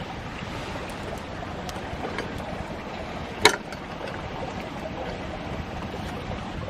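Wood campfire crackling steadily with small scattered ticks, and one sharp loud pop about halfway through.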